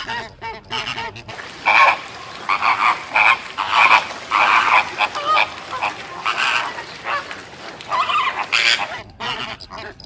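A flock of flamingos calling: many short calls overlapping one another, louder from about a second and a half in until near the end.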